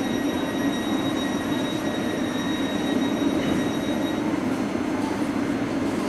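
Train running with a steady rumble and a high, steady whine that stops about four seconds in.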